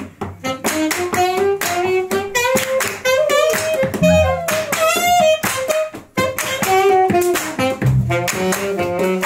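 Musicians clapping their hands in a steady beat while a pitched melody line runs over it, with two low notes about four and eight seconds in.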